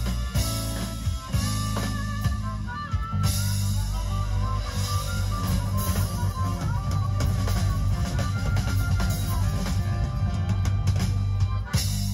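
Live rock band playing amplified through stage speakers: drum kit, electric guitars and bass guitar.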